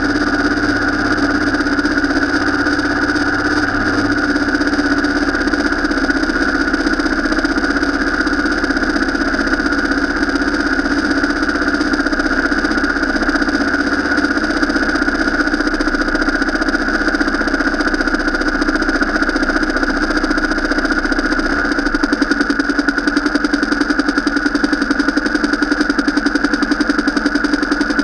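Vehicle engine running steadily. About three quarters of the way through its note changes and takes on a fast, even pulsing.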